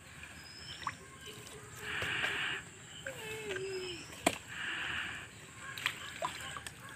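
A gill net being hauled hand over hand out of the water into a small boat: a short splash of water each time an armful comes up, about every two and a half seconds, with a few sharp knocks in between.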